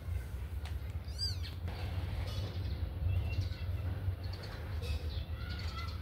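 Kittens mewing: short, high, thin mews, with a wavering one about a second in and several more in the second half, over a steady low rumble.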